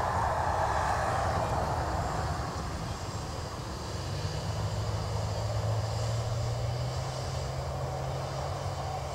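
Boeing 737-800's CFM56 jet engines on the landing rollout. A broad roar eases off over the first couple of seconds, leaving a steady low hum with a faint high whine.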